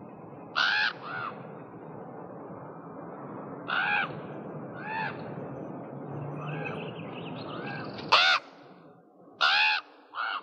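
Crows cawing: a series of short, harsh caws, some in quick pairs, with the loudest about eight seconds in, over a steady background hiss.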